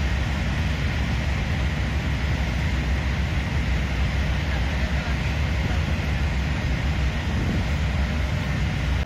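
Steady rumble of motorway traffic, with wind buffeting the microphone.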